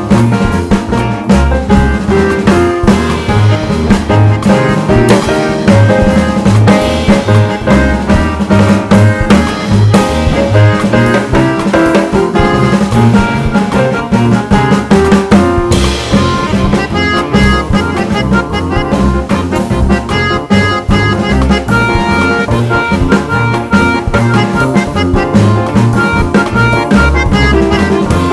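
Background music with a steady drum beat and brass-like instruments, in a jazzy style.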